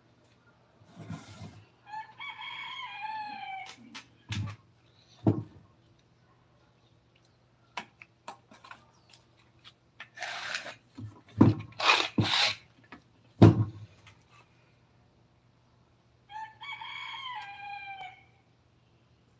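A rooster crowing twice, each crow a long call ending on a falling note, the second about fourteen seconds after the first. Between the crows come several sharp knocks and short clattering rustles.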